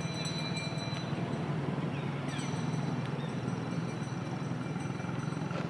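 A steady low rumble with a rapid flutter, with a few faint high chirps over it.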